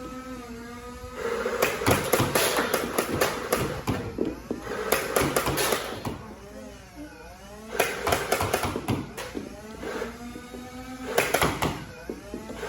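Nerf Rival blaster shots and rounds clacking against an electronic running target, in quick irregular runs of sharp knocks, over the target's motor whine as it moves along its track. The whine's pitch dips and comes back up about midway.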